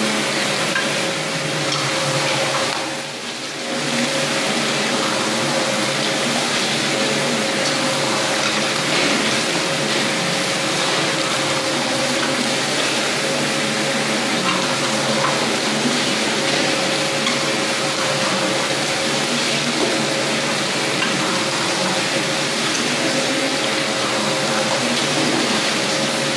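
Pisces FR 75 11 14 trout filleting machine running steadily as it turns out fillets: a continuous hissing machine noise with a steady hum-like tone through it, dipping briefly about three seconds in.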